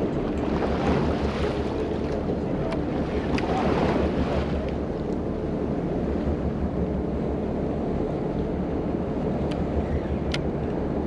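Wind blowing across the microphone and sea water washing along a boat at sea: a steady rushing noise that swells twice in the first half, with a few faint sharp ticks.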